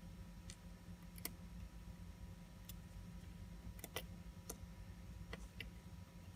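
Small, sharp metal clicks of watchmaker's tools (tweezers and screwdriver) touching parts of a manual-wind watch movement, about eight at irregular intervals with a pair close together near the middle, over a faint steady hum.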